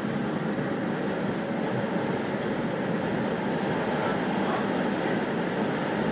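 Steady running noise of a moving passenger train, heard from inside the car: an even rumble with no distinct clicks or horn.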